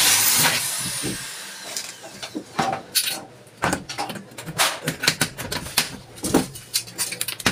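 Cordless drill driving a screw into the corner of an aluminium frame, running briefly at the start and then winding down with a falling whine. After that come scattered clicks and knocks of small metal parts and screws being handled against the aluminium frame.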